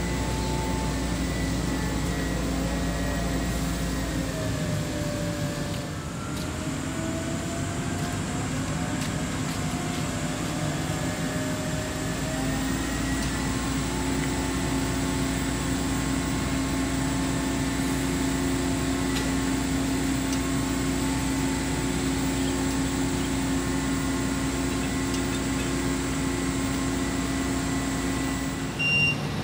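Heavy diesel machinery running steadily: a constant hum with several engine tones that drift slowly up and down in pitch. A deep rumble underneath drops away from about four seconds in and comes back about twelve seconds in.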